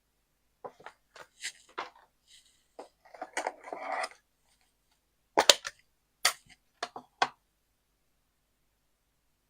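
Sharp clicks and taps of stamping supplies being handled on a craft table, with a short scuffing rustle about a third of the way in; the loudest clicks come a little past halfway.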